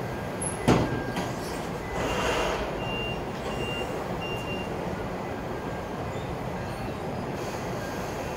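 Toyota forklift backing up: its reversing alarm beeps three short times, over the steady running of its engine. A single sharp knock comes just under a second in, the loudest sound.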